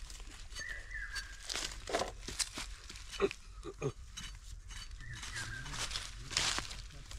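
Knife blade scraping the bristles off a slaughtered pig's hide in repeated short rasping strokes.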